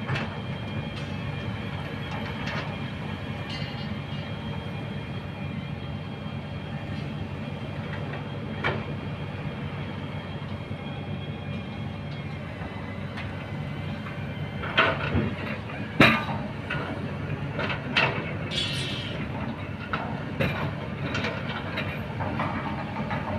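Kobelco hydraulic excavator's diesel engine running steadily under load while it digs. In the second half come several sharp clanks, the loudest about 16 seconds in, as the steel bucket strikes rocks.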